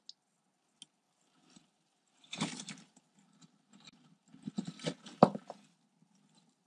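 Bark-chip bedding rustling and crackling as a garter snake and the live toad it is swallowing shift and scrape across it, in two short spells, the second with a sharp crack, and a few faint ticks between.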